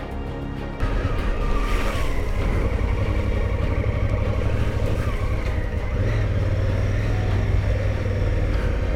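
Background music cuts off under a second in. Then comes the onboard sound of a big adventure motorcycle riding a muddy dirt track: its engine running steadily under wind and riding noise.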